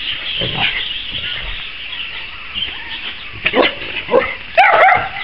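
A pack of dogs barking and yipping, starting faint and growing louder with quick sharp barks from about three and a half seconds in.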